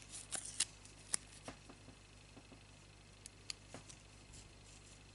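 Faint, sharp clicks and light crackles of fingers working a small strip of tape and a thin wire petal stem, bunched in the first second, then only a few scattered ticks over low room hum.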